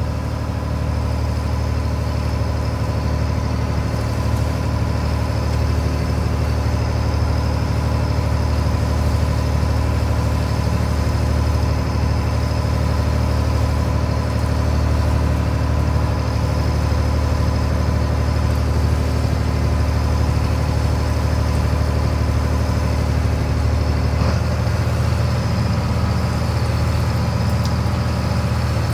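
Fishing boat's engine running steadily, a deep hum with a faint steady whine above it; its note changes slightly near the end.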